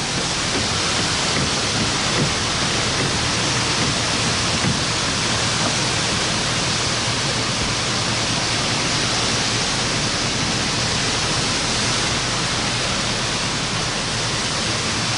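Steady, loud rushing of wind and heavy rain during a tornado intercept, with no break or change.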